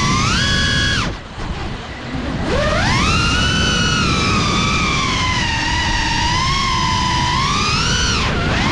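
FPV quadcopter's motors and propellers whining, the pitch rising and falling with the throttle. About a second in the throttle is cut and the whine drops away for over a second, then surges back up with a rising sweep; it dips and climbs again near the end. Wind rumble on the onboard microphone underneath.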